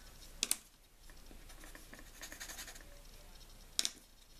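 Pencil sketching on paper: faint, light scratchy strokes, with two sharp taps, one about half a second in and one near the end.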